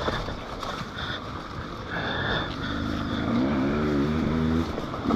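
Dirt bike engine running at low revs, coming in about two seconds in and getting louder, its pitch wavering up and down for a second or so.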